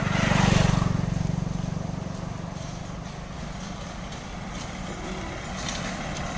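A motor vehicle's engine passing close by on the road: it is loudest about half a second in, then fades as it moves away, with its engine hum still audible.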